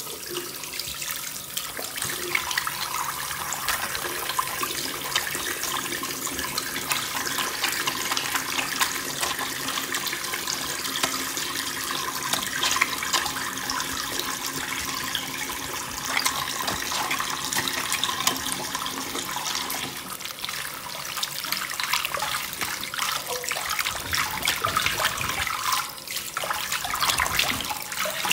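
Tap water running into a sink while hands are lathered and rubbed together with soap under the stream, with small irregular splashes throughout.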